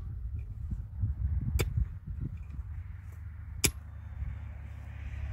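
A pick striking stony soil while digging a pit: two sharp strikes about two seconds apart, over a low steady rumble.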